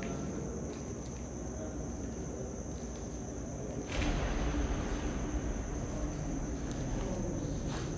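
Crickets chirping in a steady high-pitched trill. About four seconds in there is a knock, then low rumbling as a person walks past close to the camera on the concrete floor.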